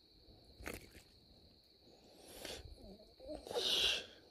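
Handling noises as a caught bass is held and worked off the hook by hand: a sharp click about a second in, then rustling, and a louder burst of hissy noise near the end. A faint steady high whine runs underneath.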